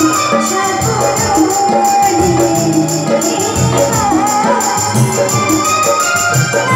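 Music: a song with a fast, steady shaker-like percussion beat over a bass line and a melody.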